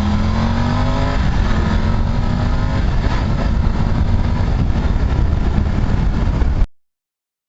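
Triumph Tiger 900 Rally Pro's three-cylinder engine pulling under acceleration, its pitch rising through about the first second, then running steadily under wind and road noise. The sound cuts off suddenly near the end.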